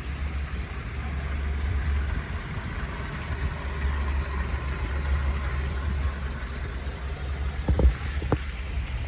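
Steady low rumble of outdoor background noise, with two short knocks about three-quarters of the way through.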